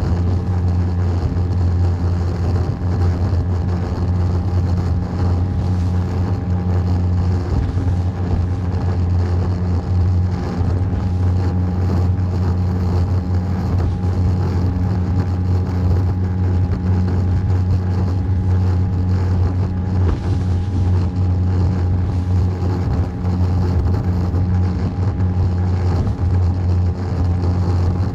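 Small boat's engine running steadily at a constant speed while underway, a low, even hum with no change in pitch.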